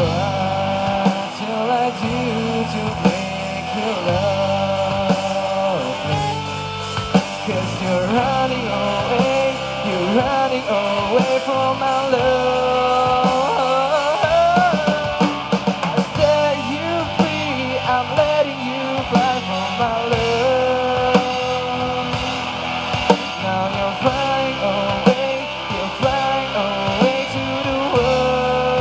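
Live rock band playing a song at full volume, with drums and a melodic line that bends in pitch.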